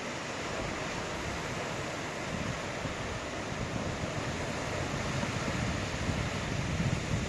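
Ocean surf with wind buffeting the microphone: a steady wash of breaking waves, with the low rumble growing louder and gustier toward the end.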